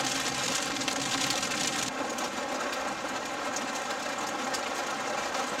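Rain falling on a vehicle with its engine running, heard from inside the cabin as a steady hiss over a low engine hum. About two seconds in, the hiss turns duller.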